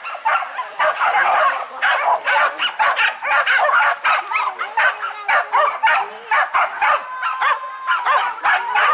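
A pack of hunting dogs barking and yelping, many short calls overlapping in quick succession.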